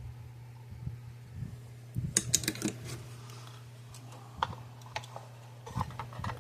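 Small clicks and taps of parts and tools being handled on a workbench: a quick run of clicks a couple of seconds in, then a few single ones. A steady low hum runs underneath.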